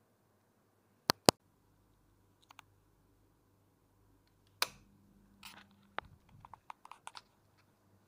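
Sharp clicks of a wall switch panel being pressed to work a ceiling fan: a loud pair about a second in, then a scattering of lighter clicks and ticks, with a brief low hum midway.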